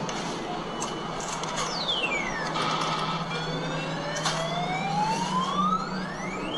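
Electronic sound effects from arcade claw machines: overlapping tones that sweep slowly up and down in pitch over a steady hum, with a few sharp clicks.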